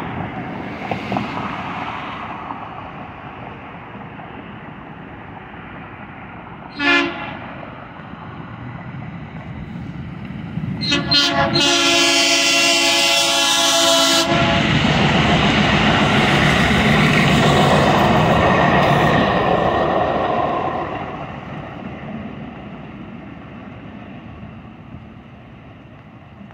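DART light rail train (a Kinkisharyo light rail car) sounding its horn, a short toot and then a blast of about three seconds, followed by the rush of the train passing, which fades away. Passing car traffic is heard at the start.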